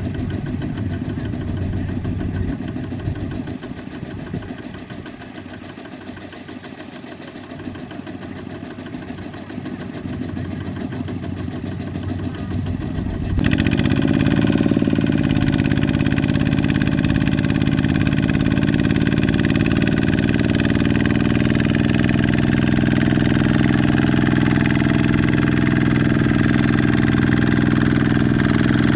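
Single-cylinder diesel engine of a two-wheel walking tractor running while it pulls a loaded rice trailer. About halfway through it changes abruptly to a closer, louder engine running steadily under load.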